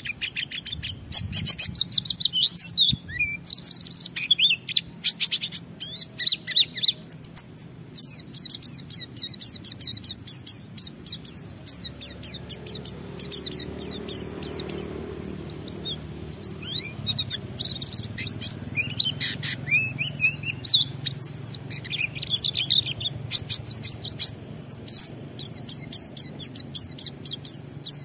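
White-eye (pleci) singing a long, rapid, continuous run of high chirps, trills and short falling notes: the vigorous 'ngalas' song that keepers play to set other white-eyes singing.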